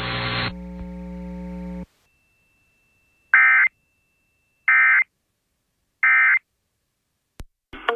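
Emergency Alert System end-of-message signal: three short bursts of warbling digital data tone, about a second apart, marking the end of the alert. Before them a steady hum cuts off about two seconds in.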